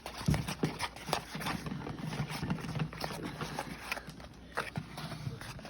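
Glue, shaving cream and food colouring being stirred in a bowl, with irregular clicks and taps of the utensil against the bowl.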